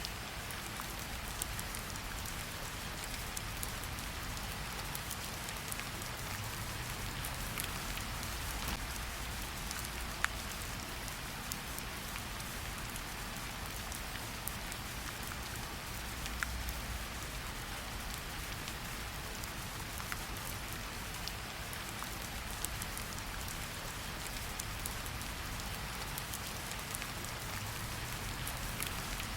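Steady rain falling: a continuous hiss with many single drops ticking through it, and a few louder drops standing out.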